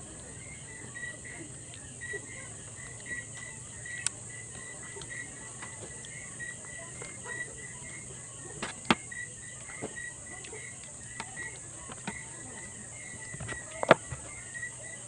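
Metal spoon and fork clinking and scraping against a plate in scattered sharp clicks, the loudest near the end, over a steady pulsing chirp of crickets.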